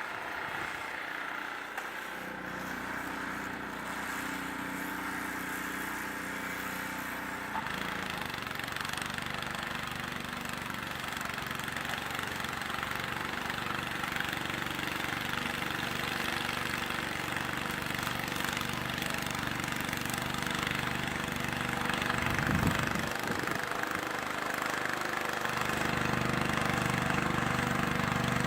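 An engine running steadily. Its note changes about eight seconds in, and it grows fuller and louder near the end.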